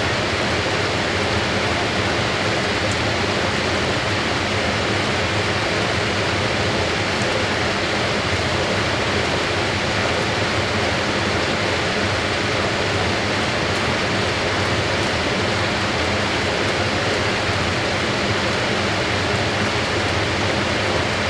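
Fisher & Paykel AquaSmart top-loading washing machine in a steady high-speed spin: an even rushing of air and water thrown off the spinning tub, over a faint steady motor hum.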